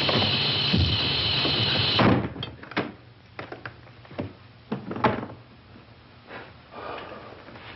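A wooden door slammed shut about two seconds in, cutting off a loud, steady noise, then a scatter of quieter knocks and clicks as the door and its latch are handled.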